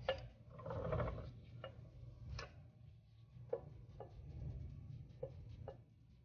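Irregular light metallic clicks as the ring gear of a Meritor 14X differential is rocked back and forth against the pinion, the teeth taking up backlash while it is measured on a dial indicator (about 0.015 in). A brief rustle about a second in, over a low steady hum.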